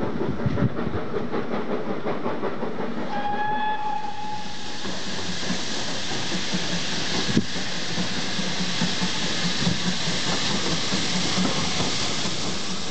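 Steam trains on the line: rumbling and clattering over the rails, with a short steam whistle blast about three seconds in. From about four seconds a loud, steady steam hiss starts as the locomotive approaches.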